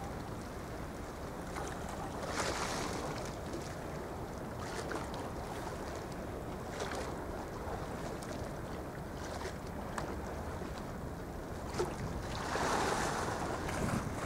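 Wind and sea waves rushing steadily, swelling louder about two seconds in and again near the end, with a few faint ticks.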